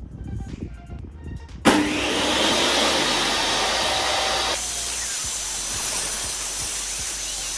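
DeWalt jobsite table saw switched on about a second and a half in, running loud together with the shop-vac dust extractor on its port. A few seconds later the sound changes as a board is fed through the blade and ripped.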